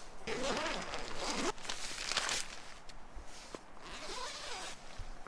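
Zipper of a Snugpak Ionosphere tent's door being pulled open, with the nylon fly rustling as gloved hands handle it. It comes in a few rasping spells.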